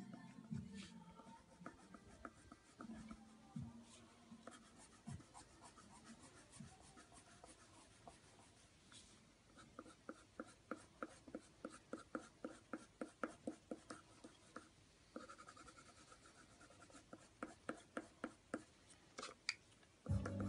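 Faint scratching of a pencil on drawing paper: scattered short strokes, settling about halfway through into a steady run of about three strokes a second, as in hatching or shading.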